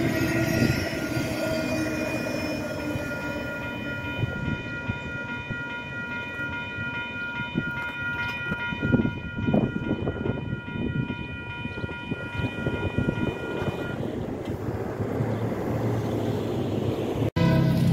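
Double-stack intermodal container train rolling past and away, its wheels and cars rumbling with some clattering about halfway through. Over it a railroad grade-crossing bell rings steadily and stops about fourteen seconds in.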